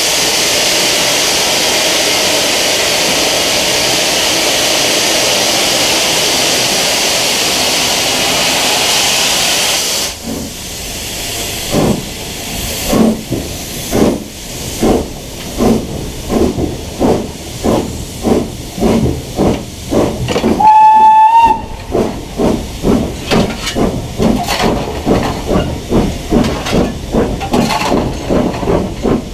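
BR Standard Class 9F 2-10-0 steam locomotive working a train: a steady loud hiss of steam, then from about ten seconds in sharp, rhythmic exhaust beats from the chimney that come steadily quicker as it gathers speed. About two-thirds of the way through, the steam whistle gives one short, loud blast.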